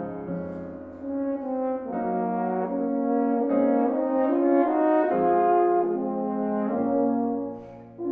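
Two French horns playing a slow duet of sustained notes in harmony, the notes shifting every second or so, with a short break for breath near the end.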